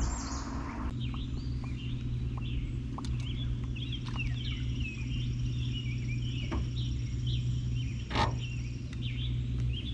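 Several songbirds chirping and singing, over a steady low hum, with a few brief knocks.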